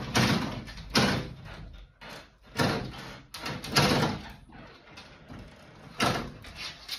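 A dog pawing at an interior door and its handle, its paws scratching and knocking on the door in about five separate bursts, roughly a second or more apart.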